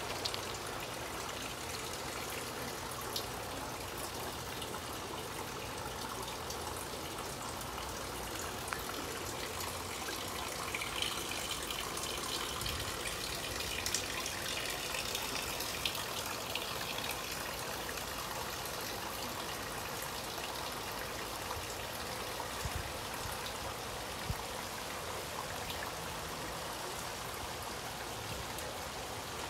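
Steady rain and runoff water trickling, with scattered sharp drip ticks. The trickle turns brighter for a few seconds midway.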